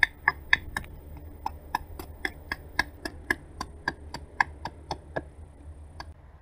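Large bow drill boring a hinge hole into wood: a quick, even run of sharp clicks, about four a second, as the bow saws the spindle back and forth. The clicks stop about five seconds in, with one last one a second later.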